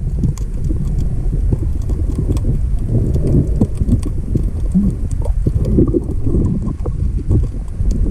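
Underwater sound picked up by a camera in a waterproof housing: a loud, muffled low rumble of water moving, with scattered faint clicks and knocks throughout.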